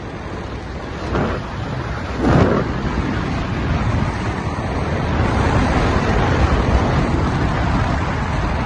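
Wind buffeting the microphone outdoors: a steady rushing noise with two stronger gusts about one and two seconds in, growing a little louder.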